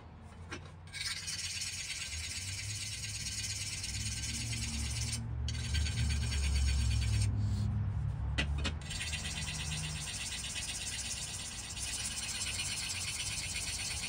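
Hand file stroking along the steel edge of a hand-forged brush axe blade to sharpen it: a continuous grainy rasping, broken by a few short pauses.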